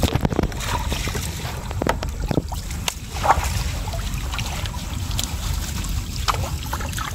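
Water splashing and trickling as a fine-mesh fishing net is lifted and gathered through shallow river water, a few short splashes standing out, with a steady low rumble of wind on the microphone underneath.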